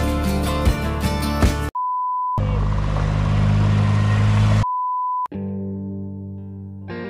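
Background music with a steady beat cuts off about two seconds in for a short electronic beep. A loud, steady rushing noise with a low hum follows for about two seconds, then a second beep, and guitar music starts.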